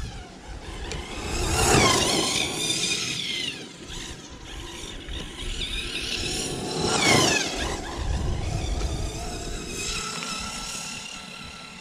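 ZD Racing Pirates 3 RC buggy's 1900Kv Racerstar brushless motor and drivetrain whining as the car is driven hard on grass. The whine rises and then falls in pitch twice, loudest about two and seven seconds in, then runs steadier and fainter near the end.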